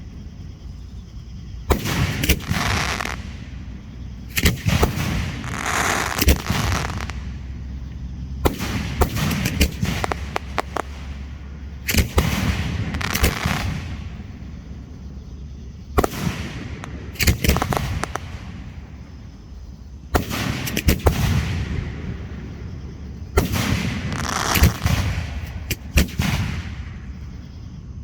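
Fireworks display shells going off in repeated volleys every two to four seconds: sharp bangs each followed by a crackling, sizzling spread.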